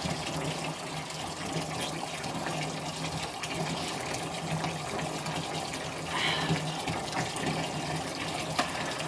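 Water running from a bath tap into a birth pool: a steady splashing rush as the pool fills.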